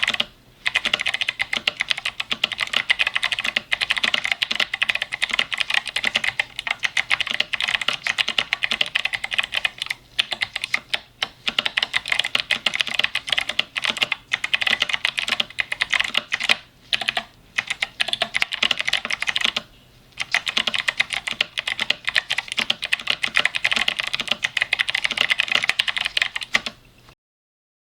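Fast continuous typing on an 8Bitdo Retro Mechanical Keyboard with clicky Kailh switches: a dense patter of crisp key clicks, with a few brief pauses. It stops abruptly near the end.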